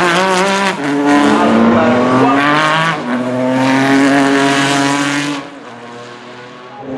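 Jaguar XJR-14 Group C race car's Cosworth HB V8 accelerating hard through the gears. The pitch climbs, drops at upshifts about one and three seconds in, and climbs again each time. About five and a half seconds in the sound falls away sharply as the car moves off.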